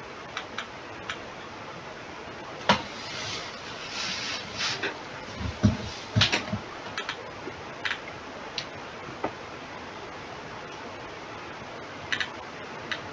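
Computer mouse clicks and scroll-wheel ticks, scattered and irregular, with a few louder knocks a little under 3 seconds in and again around 6 seconds, over a steady background hiss.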